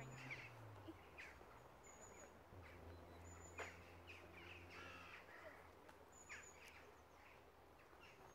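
Faint woodland birdsong: scattered short chirps and calls, with a harsher call about five seconds in. Underneath is a low, steady distant hum.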